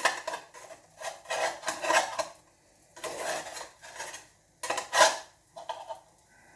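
A kitchen utensil scraping and knocking against a frying pan in a series of short strokes, working under a pancake to turn it over. The loudest scrape comes about five seconds in.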